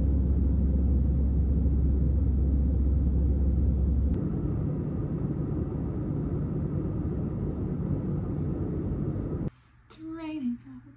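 Steady cabin noise of a jet airliner in flight, engines and airflow heard from a window seat over the wing, with a low drone under it. About four seconds in it cuts to another stretch of the same steady cabin noise, which stops suddenly near the end, where a woman's voice starts.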